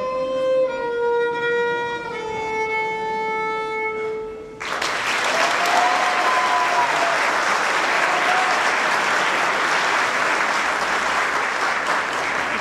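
Solo violin ending a piece with a few slow notes stepping downward, the last held for about two seconds. About four and a half seconds in, audience applause breaks out suddenly and continues.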